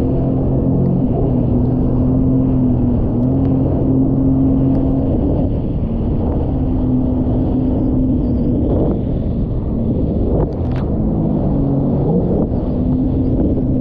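Jet ski engine running under way, its steady pitch stepping down and back up a few times as the throttle changes, over a constant rush of wind and water noise.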